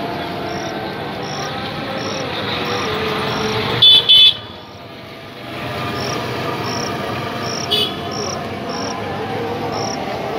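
Insect chirping in a steady rhythm, a short high chirp about every 0.7 seconds, over a constant background hum. A short, loud, high-pitched toot cuts in about four seconds in, and a briefer one near eight seconds.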